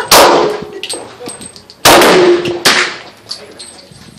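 Handgun shots on a covered firing line: two loud reports about a second and three-quarters apart, each followed by an echoing tail, and a fainter shot shortly after the second.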